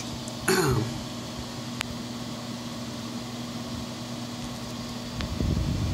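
Cooling fan and blower of a powered-up Gump-built single 3-500Z linear amplifier running with a steady hum. About half a second in, a brief louder sound falls quickly in pitch, and near the end a louder low rustle comes in.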